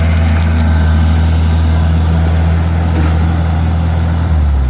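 Compact diesel engine of a mini excavator or skid steer running steadily at high revs close by, then dropping to a lower note near the end as it throttles down.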